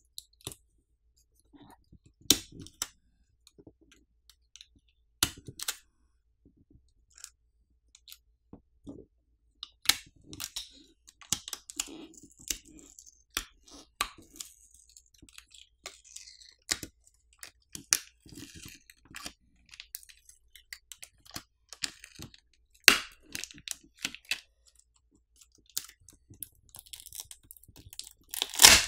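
Plastic battery pull pouch crinkling and crackling as it is pulled to peel the phone battery off its adhesive, with scattered clicks. A sharper crack comes about two thirds of the way through, and the loudest one near the end.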